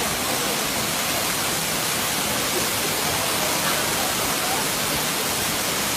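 Waterfall: steady, even rushing of falling water.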